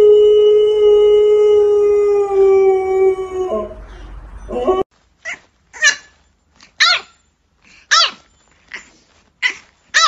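A Siberian husky howls one long steady note, gliding up into it and holding it for about three and a half seconds. After an abrupt cut, a French bulldog puppy gives a string of short high yips, about one a second.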